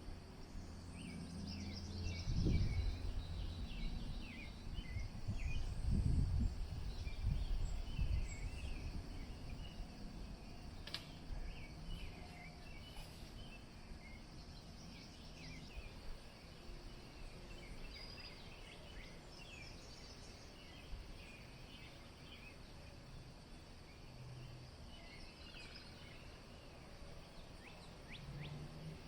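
Many small birds chirping and singing in a dawn chorus, with wind gusting against the microphone. The wind is loudest about two and six seconds in, then eases.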